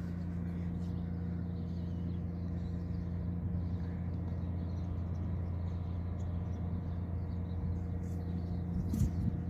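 Steady low mechanical hum with a few faint steady tones in it.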